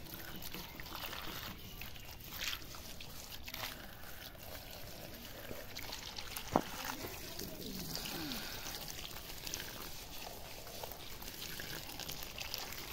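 A thin stream of water pouring and trickling onto a plastic toy dump truck and into a muddy puddle. One sharp click about halfway through.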